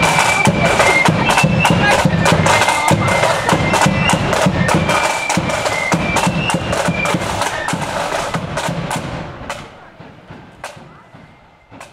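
Marching flute band playing: shrill flutes over rapid snare rolls and bass drum beats. The music fades away about nine to ten seconds in, leaving two single drum taps near the end.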